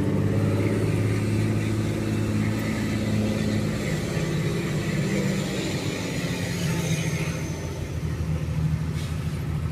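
Truck engine running steadily at low road speed, heard from inside the cab, with an even hiss of tyres on the wet street.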